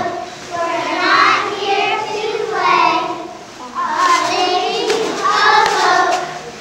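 A group of young girls chanting a cheer together in unison, in short phrases of a second or so.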